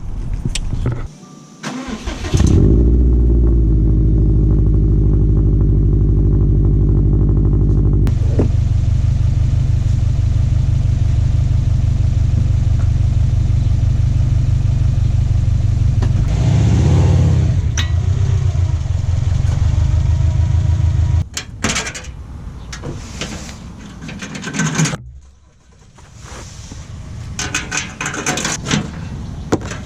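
Subaru WRX STI's turbocharged flat-four engine starting about two seconds in and then idling steadily, with a brief rev near the middle. The engine sound stops abruptly a few seconds later, followed by scattered knocks and clicks.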